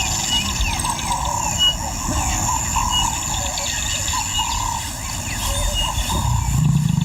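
Bush ambience: insects trilling steadily with short, repeated bird calls. A low rumbling sound comes in near the end.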